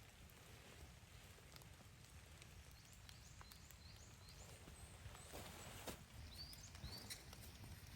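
Faint outdoor ambience: a low wind rumble with a few scattered clicks, and two short runs of high, quick chirps, about three and six seconds in.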